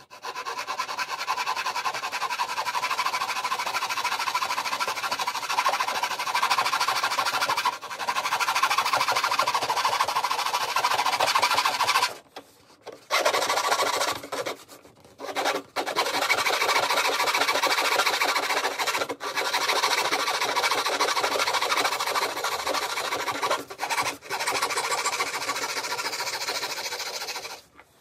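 Fine-toothed hobby saw cutting through the protruding end of a brass tube, trimming it flush with the edge of an RC plane's elevator. Steady sawing, with a couple of short pauses around the middle.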